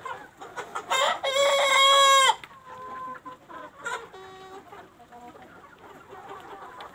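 Flock of desi chickens clucking, with a rooster crowing loudly about a second in, a long held crow, and a second, fainter crow around four seconds in.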